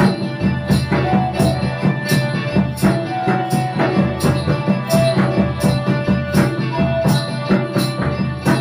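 Bamboo flute playing a tribal folk melody in held notes over a steady beat on a two-headed barrel drum, with harmonium accompaniment.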